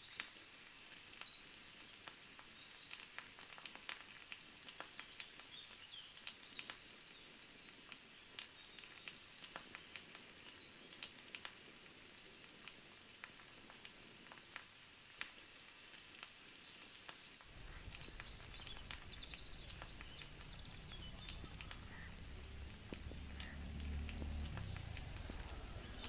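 Wood fire crackling and sizzling faintly under skewered prawns grilling over it, with birds chirping in the background. About two-thirds of the way through, a low rumble comes in.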